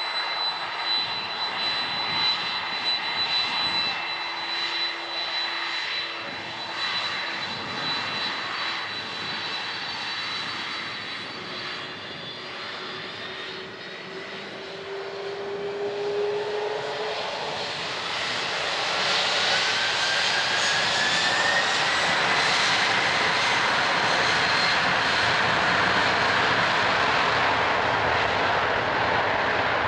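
A Boeing 767-300's twin turbofan engines whining at low thrust as it taxis, then spooling up about halfway through, the whine rising in pitch, to a loud, steady takeoff-power noise for the takeoff roll.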